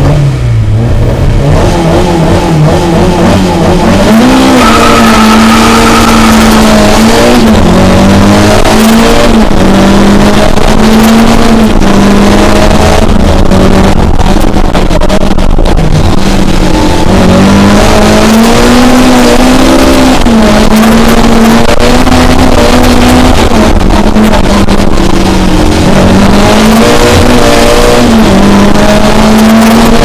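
Lada 2107 competition car's four-cylinder engine heard from inside the cockpit, running hard at high revs. Its pitch falls and climbs again several times as the driver changes gear and lifts off.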